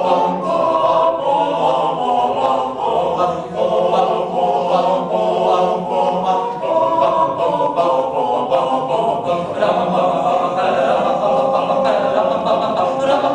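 A group of voices singing together without instruments, in the manner of an a cappella choir, with several sustained, shifting pitches.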